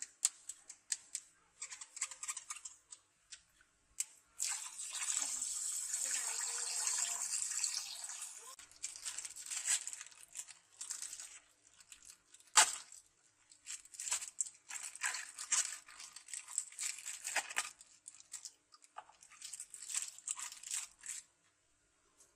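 Close-up hand-handling noises: rustling and scraping with many scattered clicks, a longer continuous rustle from about four to eight seconds in, and one sharp click around the middle.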